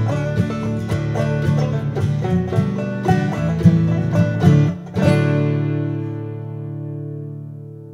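Bluegrass-style acoustic string music of guitars, mandolin and banjo picking quickly. About five seconds in it ends on a final chord that rings on and fades away.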